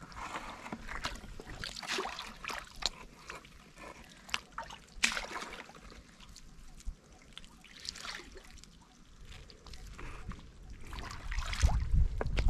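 Shallow muddy water splashing and sloshing as someone wades in it and reaches in by hand: short, irregular splashes and drips. Near the end the sloshing grows louder and lower as they walk through the water.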